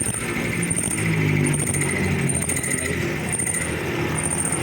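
WM210V mini lathe running: a steady machine whir with a high whine that comes and goes.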